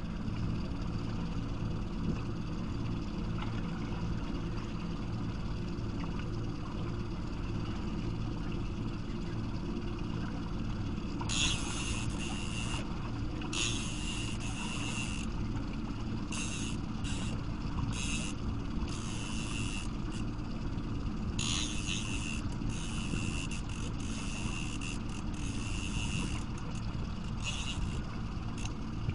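Steady low engine hum of the boat, with a fishing reel winding in line in stop-start stretches from about ten seconds in while a fish is played on a bent rod.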